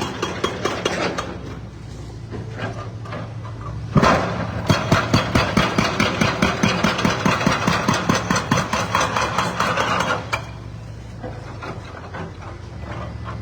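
Heavy machine engine running steadily while a concrete breaker hammers in rapid repeated blows. The hammering comes in short stretches, in the first second and from about four to ten seconds in, with only the engine between.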